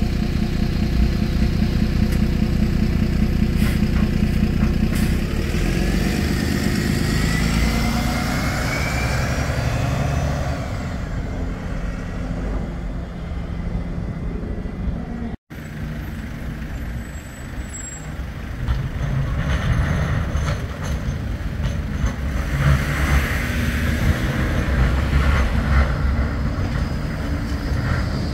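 Street traffic and a Bombardier Flexity 2 tram running along the street, with a rising electric whine as the tram gets under way. The sound cuts off suddenly about halfway through. It then carries on as buses and cars passing, with a tram passing close by near the end.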